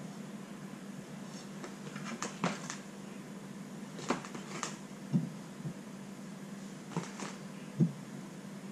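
Metal spatula clicking and knocking as buttercream is scraped off against the edge of a plastic tub and smoothed around the cake: a handful of short, sharp clicks and knocks, two of them louder, over a steady low hum.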